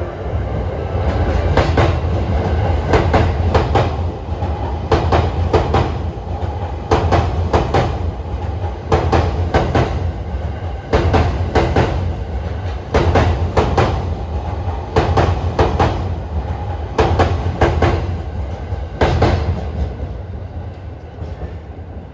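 JR East E353 series limited-express train passing through a station, its wheels clacking loudly over rail joints in groups of clicks about every two seconds over a steady low rumble. The clacking dies away near the end as the last cars go by.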